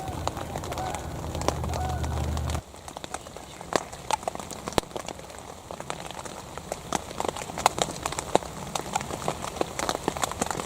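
Footsteps walking through dry leaves and twigs on a forest floor: an irregular run of sharp crackles and snaps. For the first couple of seconds a steady low hum lies underneath, then cuts off abruptly.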